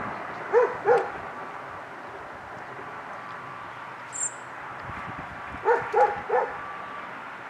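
A dog barking: two short barks about half a second in, then three more in quick succession around six seconds in, over a faint steady background noise.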